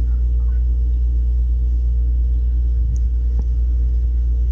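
Steady, loud, low machine hum from a running motor.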